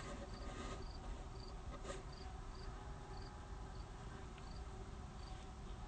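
A single insect chirping faintly and steadily, a short high chirp repeating roughly every half second, over a low background hiss.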